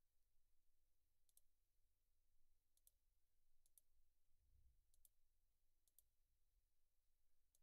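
Near silence with a handful of faint computer mouse clicks, some in quick pairs.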